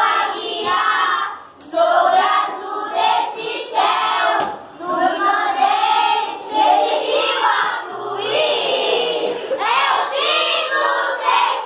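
A classroom of children singing a song together, many voices at once, loud and uneven, in phrases with brief breaks about one and a half and four and a half seconds in.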